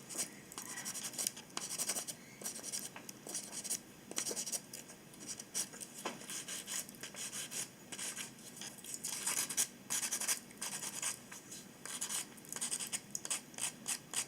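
Fingernail file rasping against a Patagonian conure's beak in many short, irregular strokes, filing down the overgrown beak.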